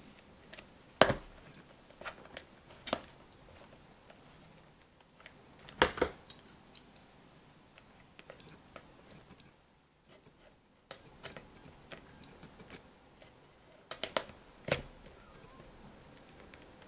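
Scissors snipping at the seal of a cardboard lens box while the box is handled: scattered sharp clicks and knocks a few seconds apart, the loudest about a second in and about six seconds in.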